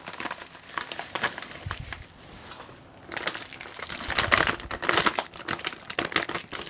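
Plastic packaging crinkling and rustling as a graphics card is unwrapped by hand, with a brief lull about two seconds in before the crinkling picks up again.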